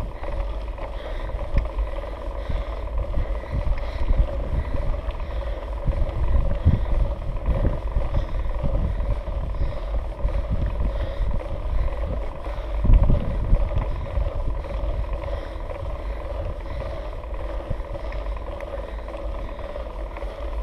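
Wind and riding noise on a GoPro carried on a mountain bike climbing a concrete track: a steady low rumble, with louder surges about seven and thirteen seconds in.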